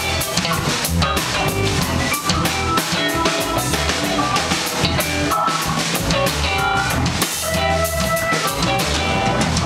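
Live band playing an instrumental New Orleans-style funk groove: drum kit with a steady kick and snare beat, electric guitar, bass and keyboards.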